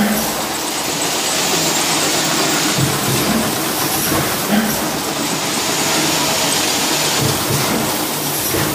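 Cup-filling machine line running: a steady, loud hiss of machinery noise from the conveyor and filling mechanism, with a few faint knocks.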